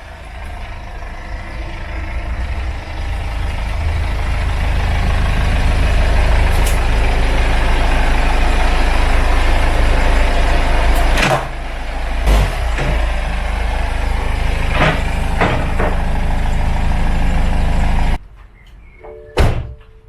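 BMW 318d (E91) four-cylinder diesel engine running as the car is driven slowly, building over the first few seconds and then steady, with a couple of sharp knocks past the middle. Near the end the engine is switched off and stops suddenly, followed by one sharp knock.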